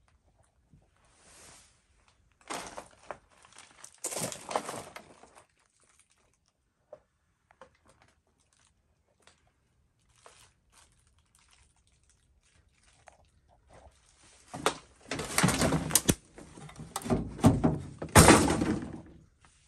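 Hands rummaging through debris and a rusty metal bin: bouts of scraping, crunching and knocking, one about three seconds in and a longer, louder one from about fifteen seconds on.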